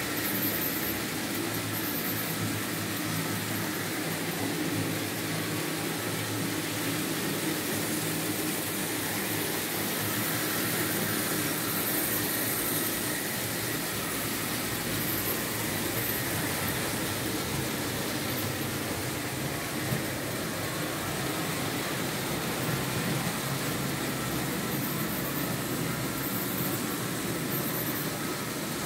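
Märklin H0 model trains running on the layout: a steady mechanical hum of small electric motors and wheels rolling on metal rails.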